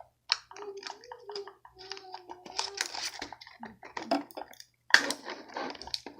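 Plastic packaging of a Ferrero Rocher box being handled and unwrapped: irregular crinkling and sharp clicks of the wrapper and plastic box.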